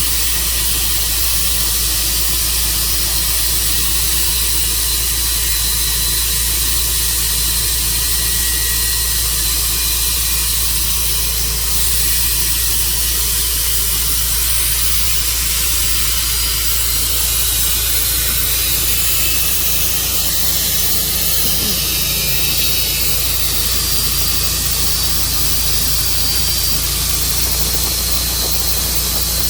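Tru Cut sawmill running steadily under load as it saws through a wide maple log: a constant low engine hum under a dense, even hiss.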